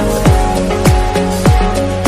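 Electronic music with a deep kick drum that drops in pitch, about every 0.6 seconds, over sustained synth chords.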